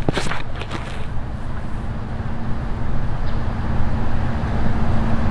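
Steady low outdoor rumble with a faint steady hum, and a few sharp clicks right at the start.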